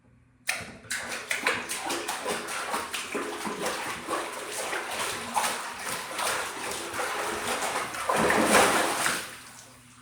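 Water splashed and sloshed by hand in a small tub, a continuous run of splashes starting suddenly about half a second in and swelling to its loudest near the end before dying away. The small tub's reflections make the water sound small.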